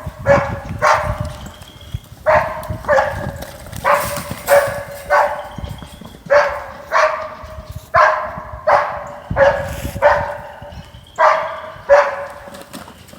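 A dog barking over and over, about twenty short barks in runs of two or three.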